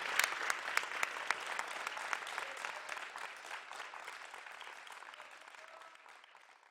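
Audience applause with individual claps standing out, fading away steadily to nothing near the end.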